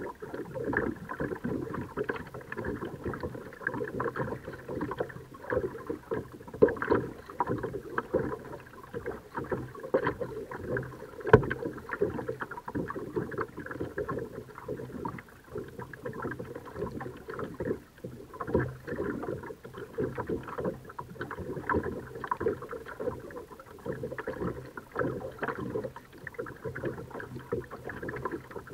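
Water splashing and sloshing around a kayak as it is paddled, an irregular crackle of paddle strokes and water against the hull, with a single sharp knock about eleven seconds in.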